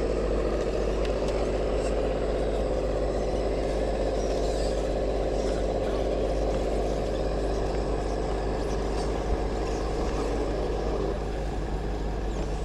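Radio-controlled scale off-road vehicle running: a steady motor whine that eases off about eleven seconds in.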